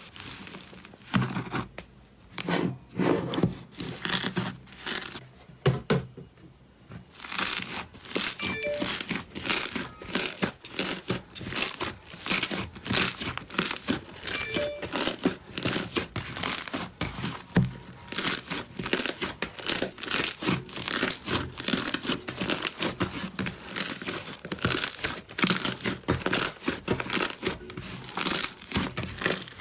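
Slime being squeezed and worked by hand, with rapid crackling and popping strokes, a few a second. The strokes are sparse and quieter at first and turn dense and steady from about seven seconds in.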